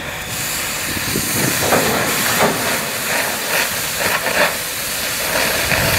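Gas cutting torch hissing as its flame and oxygen jet cut through rusted steel hull plate, growing louder about a second in, with irregular crackles.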